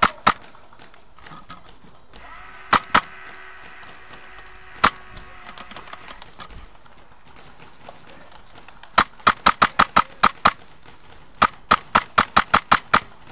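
Airsoft rifle firing sharp single shots: a pair, another pair, a lone shot, then two quick strings of about eight or nine shots each in the second half.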